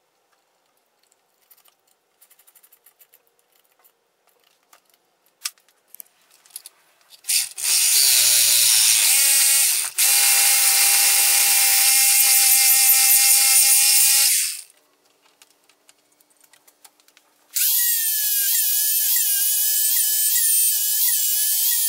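Light clicks and taps of hands handling engine parts, then a power tool runs for about seven seconds and stops. After a short pause an electric angle grinder with a thin cut-off disc cuts through a threaded bolt clamped in a vise, its whine wavering as the disc bites.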